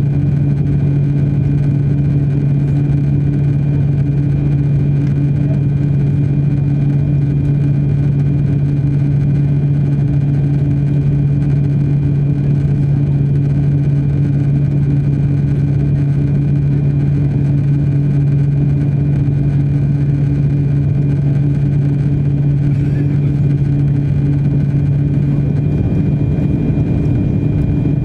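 Cabin drone of an Airbus A340-600 on final approach with flaps extended, its four Rolls-Royce Trent 500 turbofans running steadily: a loud low hum with a steady high whine above it. Near the end the low hum wavers slightly.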